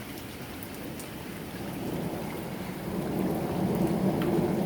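Steady rain falling, with a low roll of thunder that swells from about one and a half seconds in and grows louder to the end.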